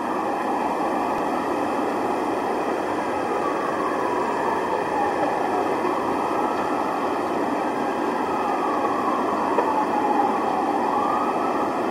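Emergency vehicle siren wailing, its pitch slowly falling and rising twice, over a steady wash of street noise.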